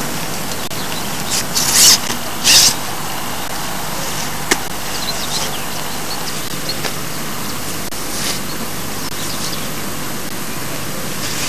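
A nylon carp sack being handled over a steady hiss: two brief rustles about two seconds in, then a single sharp click about four and a half seconds in.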